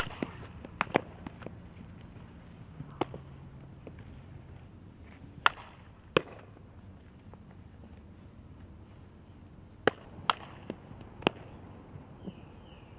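Sharp leather pops of a softball being fielded into a fielder's glove, with other sharp ball cracks, about eight in all, several coming in pairs under a second apart.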